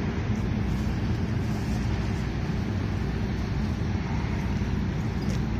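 Steady low rumble of background noise with a fainter hiss above it, level and unbroken, with no distinct events.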